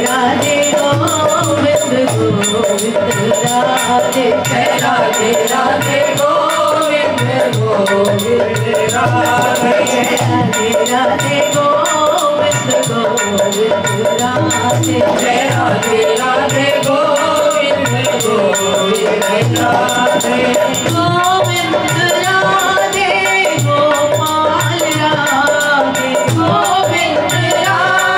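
A woman singing a Hindi devotional bhajan to Radha, with rattling hand percussion keeping a steady beat under the melody.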